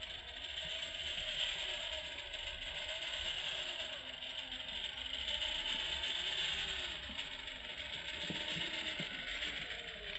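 Electric motor and geared drivetrain of a radio-controlled Jeep Rubicon scale crawler whining as it crawls, a continuous high gear whine with a lower motor pitch that rises and falls with the throttle.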